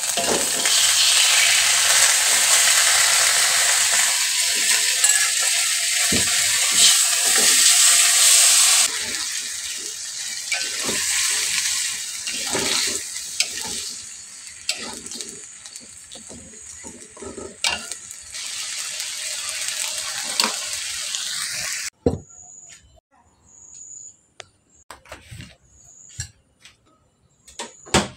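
Corn fritters frying in hot oil: a loud sizzle that eases after about nine seconds, with a utensil knocking and scraping in the pan. The sizzle cuts off suddenly about twenty-two seconds in, leaving a few light clatters.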